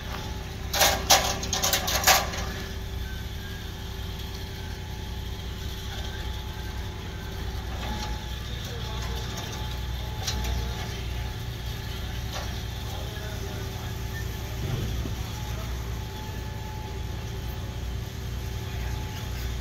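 An engine running steadily with a low drone. About a second in comes a quick cluster of sharp knocks and rattles.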